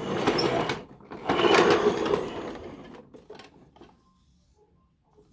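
Paw Patrol Patroller toy truck giving two bursts of rattling, machine-like noise, the second longer, then a few light plastic clicks.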